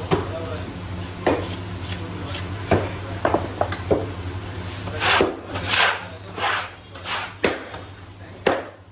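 Scraping strokes on a wooden chopping board: a hand scaler scraping scales off a whole Indian salmon, then a flat metal scraper sweeping the loose scales off the board in a run of longer strokes from about halfway through.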